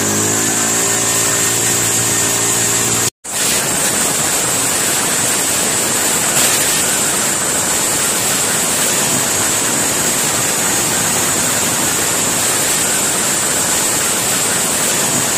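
Petrol brush cutter engine running flat out by itself straight after starting, racing at high revs with a steady high-pitched scream. Its pitch climbs in the first few seconds, and the sound breaks off briefly about three seconds in. The runaway revving comes from a throttle (accelerator) cable that is not seated properly.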